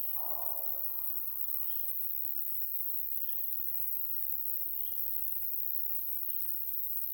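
Steady high-pitched buzz of late-summer insects such as crickets or bush-crickets. A short call repeats about every second and a half, and a brief rustle of wind comes in the first second.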